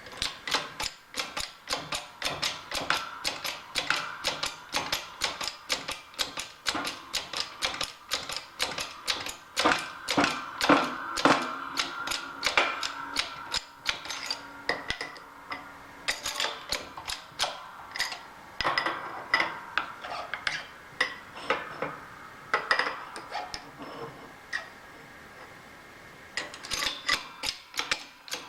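Rapid metallic clicking and tapping, several strokes a second with a faint ringing, from hand-tool work on steel parts. It pauses briefly a few seconds before the end, then resumes.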